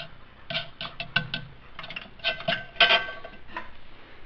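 A quick run of light clinks and clatters, hard objects knocking together with a short ring after each knock.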